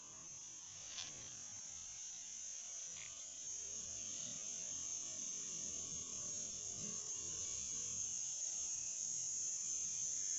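A steady high-pitched buzzing hiss that grows slowly louder, with a faint click about a second in.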